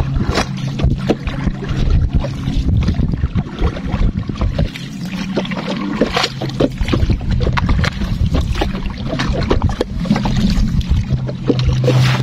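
Small boat's motor running steadily with a low hum, under irregular knocks and crackling throughout; the hum swells near the end.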